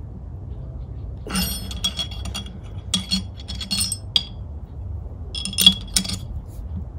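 Light metal clinks and taps, some with a short bright ring, as a steel Allen key knocks against the stainless folding-propeller housing and nut; scattered over several seconds.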